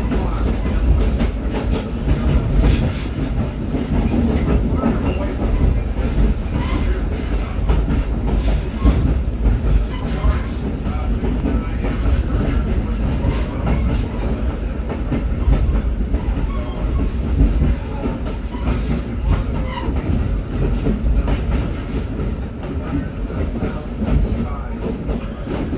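Caboose rolling along jointed track: a steady low rumble, with the wheels clicking over rail joints every few seconds.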